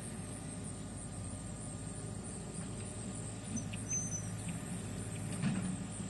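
Outdoor pond ambience: a steady low rumble under a faint high steady tone, with a short high chirp about four seconds in and a soft low bump shortly before the end.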